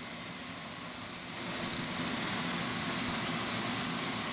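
Steady rushing drone of a blower motor running, with a faint thin high whine over it; it gets a little louder about a second and a half in.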